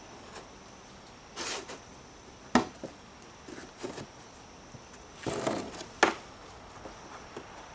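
Boards of a block mold being handled and set in place: short scraping shuffles and two sharp knocks, one about two and a half seconds in and one about six seconds in, with a few lighter clicks between.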